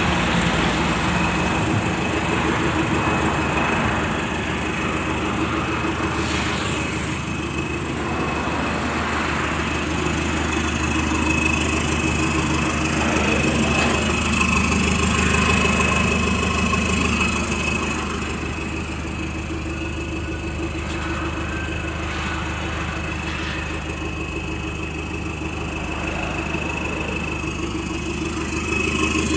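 Toyota 1KZ four-cylinder turbodiesel engine idling steadily, with a steady high whine over the engine sound.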